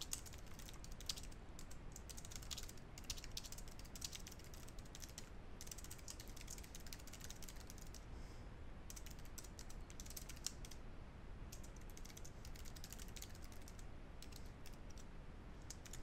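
Faint typing on a computer keyboard: quick, irregular key clicks with a few short pauses.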